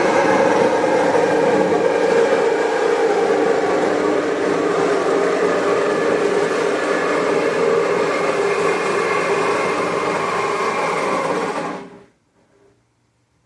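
A motor-driven machine running steadily with a loud whir, then shutting off abruptly about twelve seconds in.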